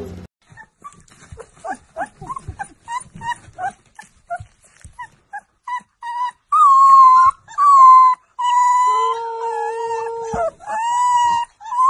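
A very young puppy vocalising with its eyes closed, as if asleep: a run of short, high squeaks and yips, then long drawn-out howls. A second, lower howl overlaps for about two seconds near the end.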